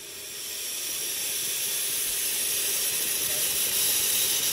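Steam hissing from the open cylinder drain cocks of the 15-inch gauge steam locomotive River Esk. The hiss swells over the first second or so, then holds steady, growing slightly louder.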